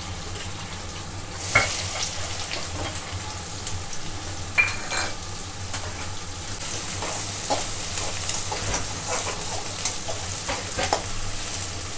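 Chopped onions sizzling as they fry in hot oil in a steel kadai, stirred with a spoon that knocks and scrapes against the pan now and then. A sharp knock about a second and a half in, as the sizzle jumps up, fits the onions going into the oil. The sizzle grows stronger again after about six seconds.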